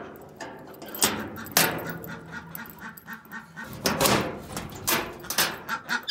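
Metal hasp and sliding bolt of a sheet-metal door clanking as it is unlatched, then the door scraping open, with ducks quacking in the pen.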